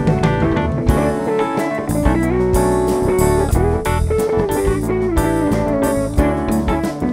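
Live band music with no singing: an electric guitar lead line over drum kit, electric bass and keyboard, in a jazz-pop groove.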